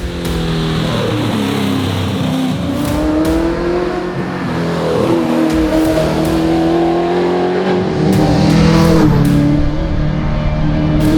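Holden Commodore rally car engine under hard acceleration on a stage, its note climbing and dropping with gear changes and growing louder toward the end.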